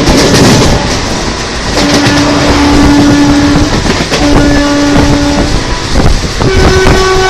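Indian Railways WAP-4 electric locomotive sounding its twin-tone horn over the rumble and clatter of the train at speed: a long blast on the lower tone about two seconds in, a shorter one on the same tone, then the higher tone starting near the end.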